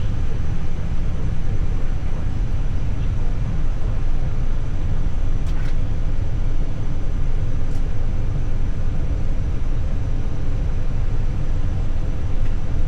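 Steady low rumble and hiss inside an Airbus A320 cockpit, its CFM56-5B4 engines at idle before the takeoff roll, with a few faint clicks about five and a half and eight seconds in.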